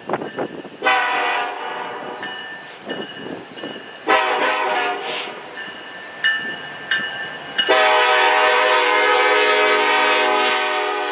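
Diesel freight locomotive's air horn blowing as the train approaches and passes: a short blast about a second in, another about four seconds in, then one long blast of nearly four seconds to the end. Each blast is a chord of several notes.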